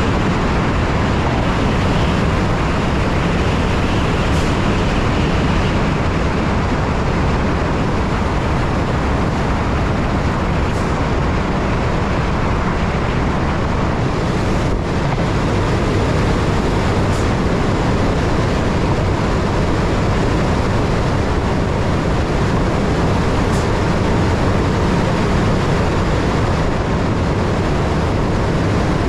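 ÖBB Railjet passenger train running at about 140 km/h, mostly inside a tunnel: a steady, loud rolling rumble of wheels on rail with a few faint ticks.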